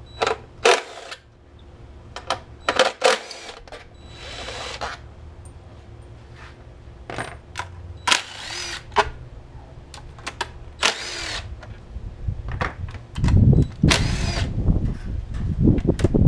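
Cordless drill run in short bursts on the engine cover's fasteners, with clicks and knocks of handling in between. The longest and loudest run starts about three seconds before the end.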